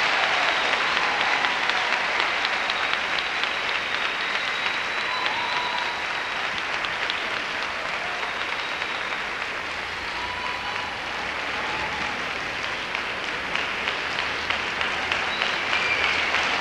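Audience applauding steadily. The clapping eases a little around the middle and builds again near the end.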